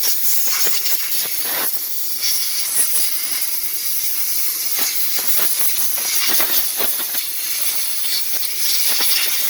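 A steady high-pitched hiss with scattered light clicks and taps.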